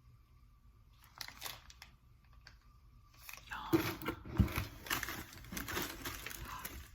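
Plastic snack wrappers crinkling and rustling as packaged snacks are handled, starting about halfway in after a few faint clicks.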